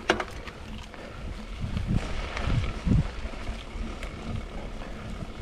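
Mountain bike rolling over a dirt singletrack: a steady low rumble of tyres and wind on the microphone, with sharp rattling clicks near the start and a few heavier thuds from bumps in the middle.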